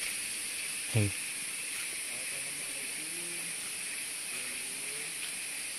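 Tropical forest insects, such as cicadas, making a steady high-pitched hiss in two high bands.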